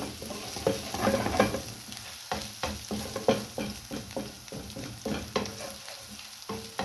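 Garlic sizzling in hot oil in a frying pan while it is stirred, the utensil knocking and scraping against the pan in quick, irregular strokes.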